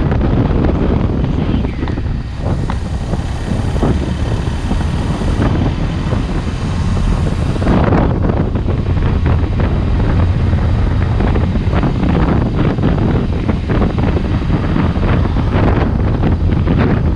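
Wind rushing and buffeting over a microphone on a moving motorcycle, with the motorcycle's engine and road noise running steadily beneath.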